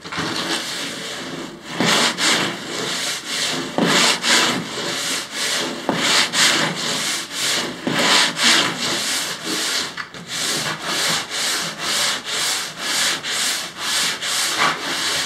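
Hand sanding with sandpaper on a block, rubbing down dried spackle filler along the rounded rim of a kayak cockpit opening in back-and-forth strokes. The strokes settle to about two a second near the end.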